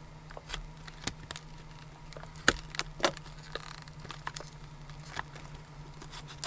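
Dull knife cutting and prying at a hard plastic clamshell package: scattered clicks and crackles of the plastic, with two sharp snaps about halfway through.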